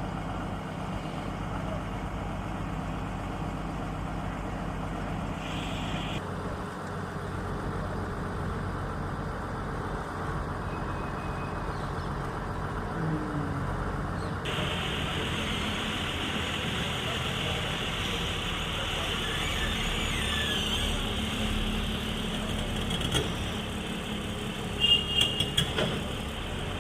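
Tata Hitachi excavator's diesel engine running steadily, with a few sharp metallic clanks in quick succession near the end.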